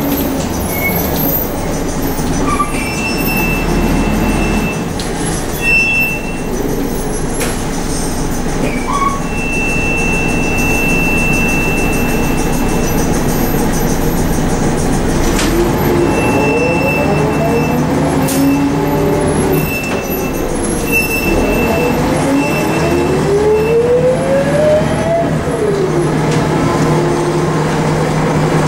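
Inside a Volvo B10M bus under way: its diesel engine runs with a steady low hum. In the second half a drivetrain whine rises in pitch twice and then falls away as the bus picks up speed.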